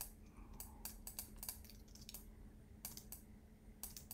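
Faint computer keyboard typing: about a dozen scattered keystrokes, some in quick runs of two or three, over a steady low hum.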